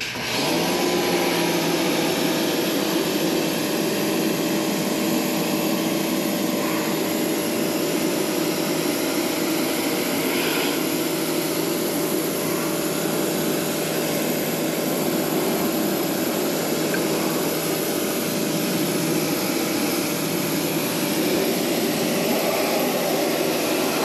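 Pressure washer running and spraying water into an air-conditioner evaporator coil, rinsing out the coil cleaner: a loud, steady hiss of spray over a steady hum. It switches on abruptly and runs without letting up.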